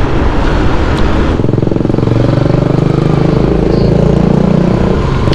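Wind rushing over the microphone while a Yamaha FZ V3 motorcycle is ridden at speed. About a second and a half in, this changes abruptly to the bike's single-cylinder engine running at a steady low pace.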